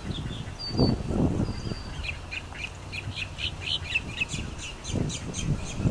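Black-necked stilts calling: a fast series of sharp, repeated yipping notes, several a second, starting about two seconds in and carrying on. Two low rumbling bursts, about a second in and near the end, are the loudest sounds.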